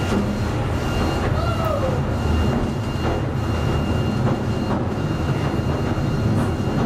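Southend Pier Railway electric train running, heard from inside the passenger carriage as it pulls away from the station: a steady low rumble with a faint steady whine above it.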